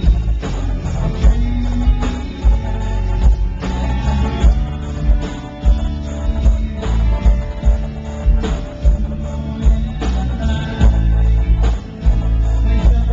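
Live rock band playing: strummed acoustic guitar and electric guitar over a steady drum beat, with a man singing. Loud, with a heavy, boomy low end.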